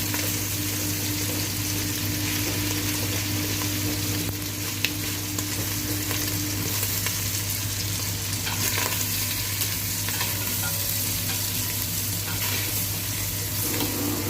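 Chicken adobo pieces frying in butter in a pot, a steady sizzle over a low, even hum.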